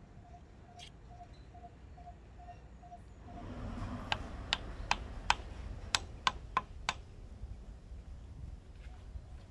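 About eight light, sharp taps, roughly three a second, as a wooden wedge is tapped into the kerf at the top of an axe handle.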